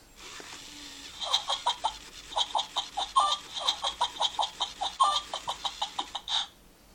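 Battery-powered plush toy monkey chattering, a rapid string of short high electronic calls over the whirr of its small motor as its arms move. The chatter starts about a second in and stops near the end.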